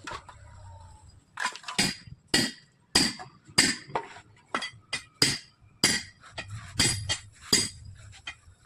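A hammer striking metal again and again, about one or two ringing clanks a second.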